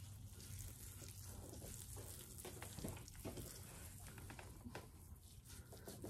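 Faint, irregular wet crackling and squishing of hands working a thick aloe vera and avocado mask through coated hair.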